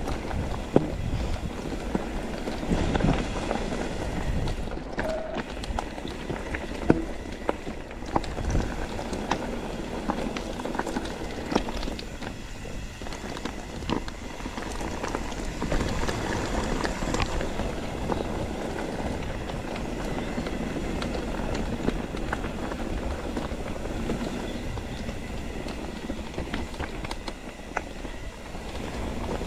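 Mountain bike being ridden over a rough trail: steady rolling tyre noise with a low rumble, broken by frequent sharp clicks and rattles from the bike.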